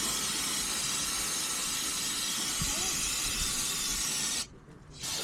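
Aerosol can of brake cleaner spraying in a long steady hiss that cuts off sharply about four and a half seconds in, then a second spray starting near the end.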